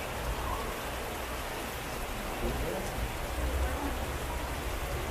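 Heavy rain pouring down in a steady, even hiss, with a low rumble underneath.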